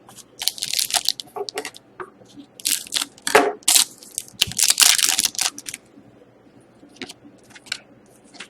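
Crinkly packaging around trading cards being handled and torn, in three main crackling bursts during the first five seconds, then a few faint clicks.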